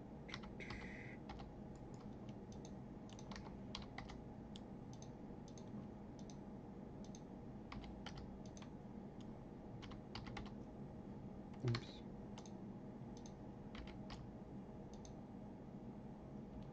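Faint, irregular computer keyboard keystrokes and mouse clicks over a low steady room hum, with one brief louder low sound about two-thirds of the way through.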